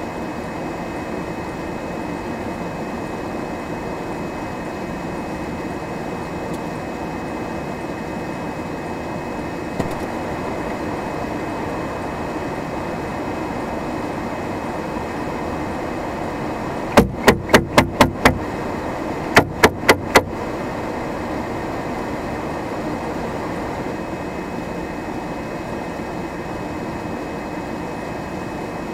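Steady hum inside a stopped car with its engine idling. About seventeen seconds in come six sharp, loud knocks in quick succession, then four more a second later.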